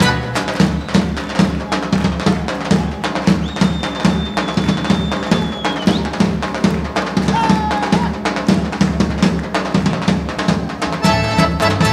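Live folk dance music in a drum-led passage: steady, rhythmic drum beats with little melody. A high whistle-like tone is held for about two seconds in the middle, and the melody instruments come back in near the end.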